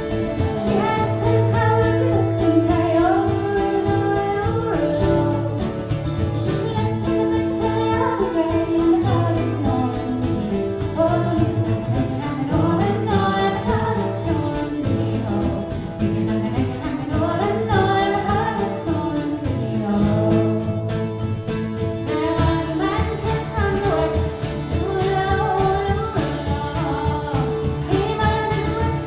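Irish traditional folk band playing live, with a woman singing the melody over plucked strings and guitar.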